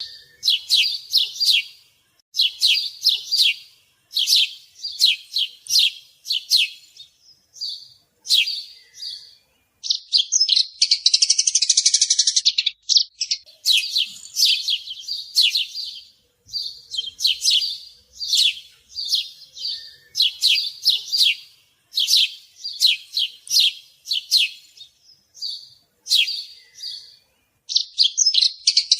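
Sparrows chirping: short runs of quick, high chirps about every two seconds, with a longer, dense chattering trill around ten seconds in and again near the end.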